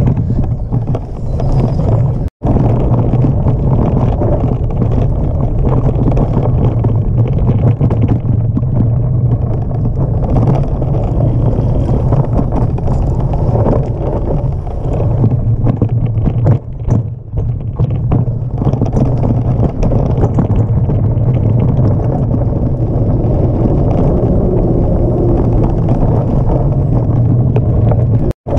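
Wind buffeting the microphone of a handlebar-mounted camera on a mountain bike, with tyres rumbling and the bike rattling over a bumpy dirt trail. The sound cuts out completely for a moment twice, about two seconds in and near the end.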